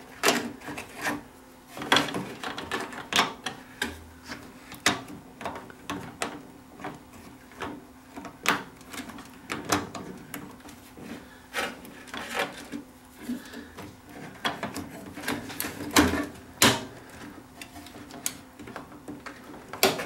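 Irregular clicks, taps and rubbing of hands working a plastic microswitch into a microwave oven's door-latch switch bracket and pushing its wiring aside, with a faint steady hum underneath.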